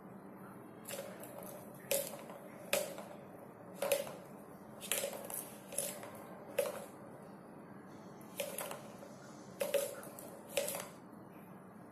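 Plastic ball clicking and knocking around the track of a three-tier plastic cat track-tower toy as a cat bats at it: about ten sharp clicks at irregular intervals, each with a brief hollow ring.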